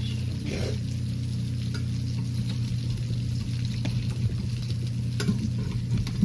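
Potato pancakes sizzling as they fry in hot oil in an aluminium pan, with a steady low hum underneath. A spatula clicks and scrapes against the pan a few times as it slides under the pancakes.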